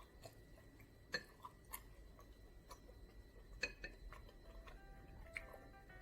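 A person eating tteokbokki: irregular soft clicks and mouth smacks of chewing, with a few sharper clicks scattered through.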